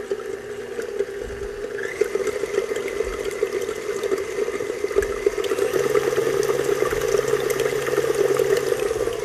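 KitchenAid tilt-head stand mixer running steadily at low speed, beating whole eggs in its stainless steel bowl.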